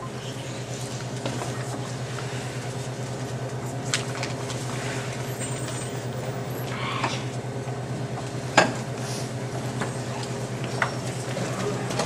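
Room tone of a seated audience waiting in a hall: a steady low hum with scattered small knocks and rustles, and one sharper knock about eight and a half seconds in.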